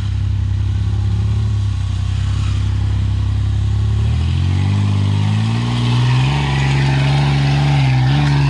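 Off-road 4x4 SUV's engine pulling hard up a steep dirt slope: a steady low note for the first few seconds, then the revs climb in steps and hold higher, dipping briefly near the end.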